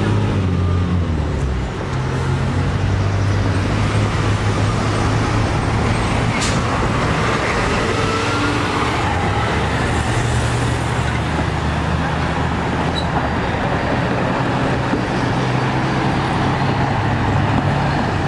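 Road traffic at a street crossing: vehicle engines running steadily under a constant traffic noise, with one sharp click about six and a half seconds in.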